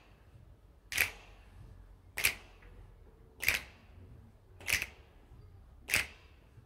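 Percussion ensemble players clapping together: five sharp single claps, evenly spaced about one and a quarter seconds apart, with the instruments silent between them.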